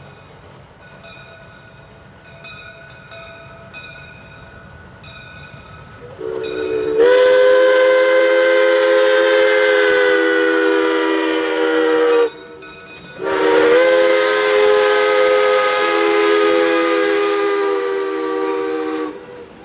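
1920 Baldwin steam locomotive's chime whistle sounding two long blasts at a grade crossing, several notes at once. The first starts about six seconds in, and there is a brief break before the second. Before the whistle, a faint dinging repeats about once a second.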